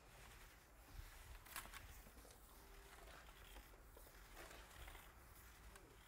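Near silence: faint background hiss with two faint clicks in the first two seconds.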